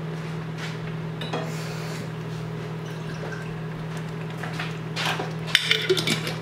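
A steady low hum, then a few sharp clinks and knocks near the end as a glass jar of pasta sauce is handled over the pot.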